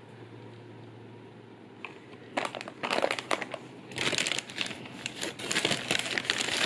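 A brown paper bag crinkling and rustling as a hand rummages inside it, starting about two and a half seconds in and going on in irregular crackly bursts.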